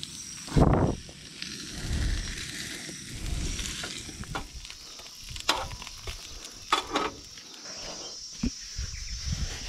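Crumbed bream fillets frying in oil on a butane gas stove's griddle plate, a steady sizzle. A loud thump comes about half a second in, and a few sharp clicks and knocks follow in the second half.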